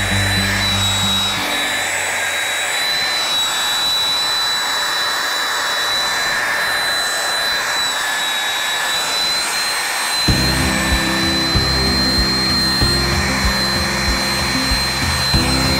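Handheld electric belt sander running steadily against the edge of a curved wooden rocker, with a constant high motor whine. Background music with a beat comes in about ten seconds in.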